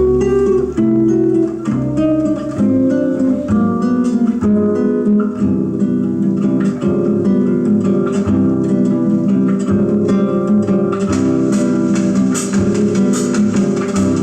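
Recorded acoustic guitar music, a bossa nova instrumental intro with plucked and strummed chords, played back through vintage JBL C38 loudspeakers (D130 woofers with 075 ring-radiator tweeters).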